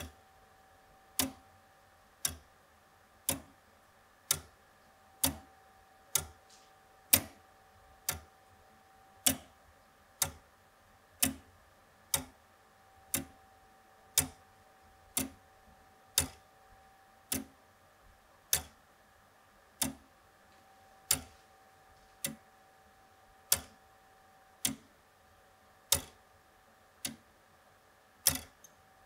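Verge-and-foliot escapement of an early wrought-iron Gothic wall clock ticking, a sharp metallic click about once a second.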